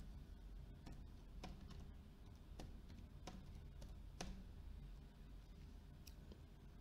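Computer keyboard being typed on: a scattered handful of faint, separate key clicks over a low, steady hum.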